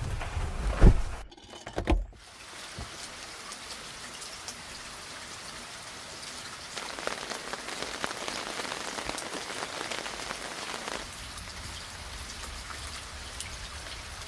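Steady rain falling, heavier for a few seconds in the middle. In the first two seconds a few loud dull thuds sound before the rain takes over.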